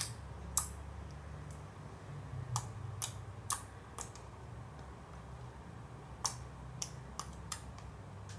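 Clear-glue water slime being pressed and kneaded by hand on a wet mat, giving irregular sharp wet clicks and pops, about a dozen of them, as trapped air and liquid squish out.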